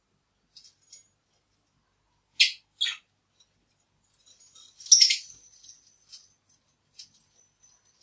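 Lovebirds on a toy-hung perch: two sharp, high chirps about two and a half seconds in, then a louder burst of calling with a knock around five seconds, among light ticks and clinks from the bead and chain toys.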